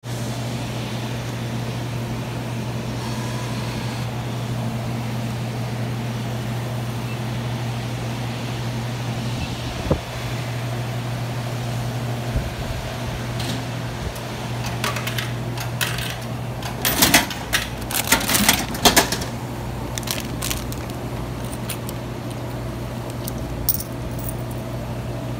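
Steady low electrical hum of vending machines running, with a cluster of light metallic clinks and rattles about two-thirds of the way through.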